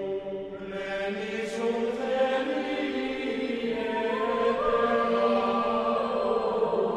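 Background music of choral chanting: voices hold long, sustained notes that shift slowly in pitch.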